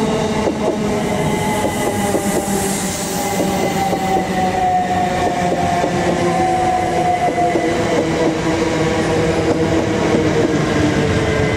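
Pair of c2c Class 357 Electrostar electric units pulling into the platform. Their traction motors whine in several tones that slowly fall in pitch as the train slows, over the steady rumble of the wheels.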